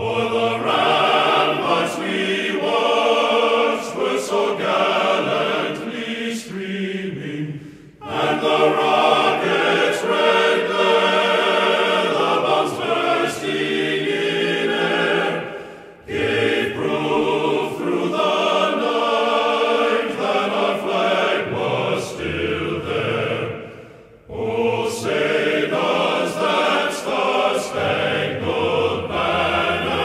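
Background music with choral singing, in phrases about eight seconds long that fade out briefly before the next begins.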